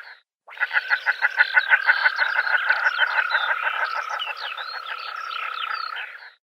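Common shelducks calling: a rapid, steady run of pulsed nasal notes with short high whistles mixed in, after a brief break at the start.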